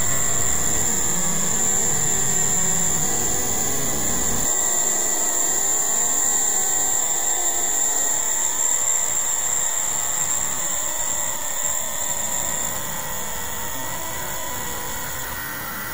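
Heavily effect-processed, distorted audio: a steady noisy hiss with a high thin whine over it. Its deep rumble drops away about four and a half seconds in, and the whole sound slowly fades.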